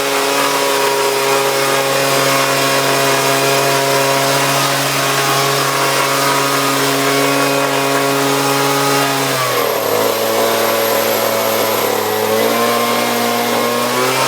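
Leaf blower engine running loud and steady at high throttle; about nine and a half seconds in its pitch drops as the throttle eases, then it climbs back up in two steps near the end.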